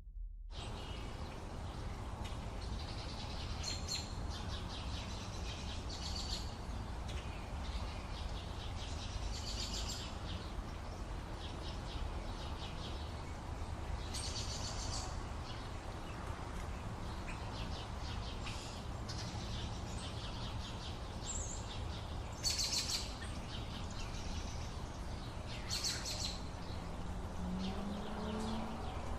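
Several birds chirping and singing in a morning outdoor ambience, short high calls coming every second or two over a steady low background rumble.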